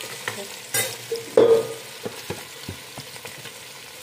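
Chopped onions sizzling in hot oil in a steel pot, with a metal spoon knocking and scraping against the pot a few times, the loudest knocks in the first second and a half.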